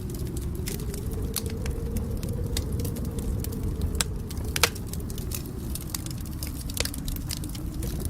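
Wood fire crackling: irregular sharp pops and snaps over a steady low rumble, with one louder pop about halfway through.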